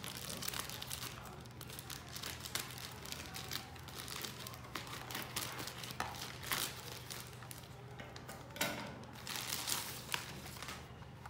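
Crinkling and tearing of a silver plastic mailer pouch as it is cut open with scissors and pulled apart, in irregular bursts, the loudest a little past halfway.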